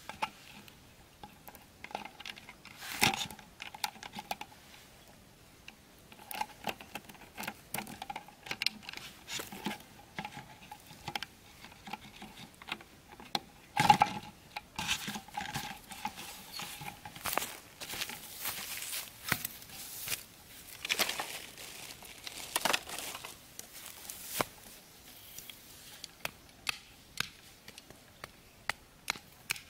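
Plastic soft-drink bottle crinkling and clicking as it is handled and fitted onto a bamboo stick frame, with many scattered light taps and one louder knock about halfway through.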